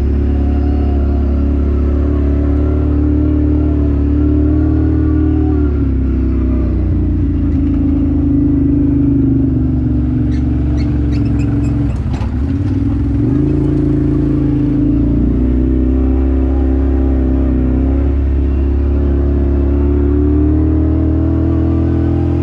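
An off-road vehicle's engine running while being driven, its revs rising and falling with the throttle. About ten to twelve seconds in there is some clattering and the engine briefly drops off before pulling up again.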